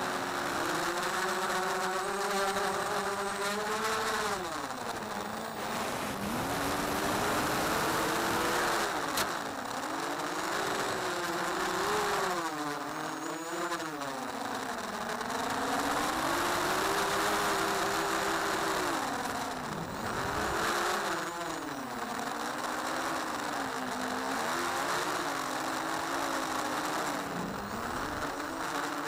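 FPV quadcopter's motors and propellers buzzing, heard through its onboard camera. The whine keeps rising and falling in pitch with the throttle, with several sudden drops and quick climbs, over a rush of prop wash and wind.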